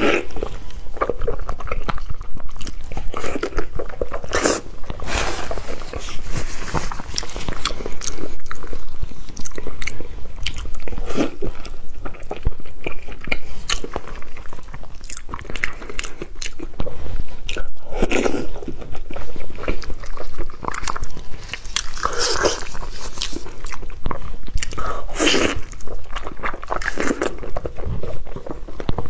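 Close-miked eating of braised beef tendon: repeated bites and chewing at an irregular pace, loudest about 18 and 22 seconds in.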